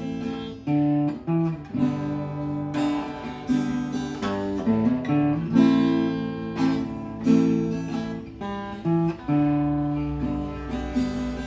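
Acoustic guitar playing a slow piece, plucked notes and chords each ringing out and fading before the next.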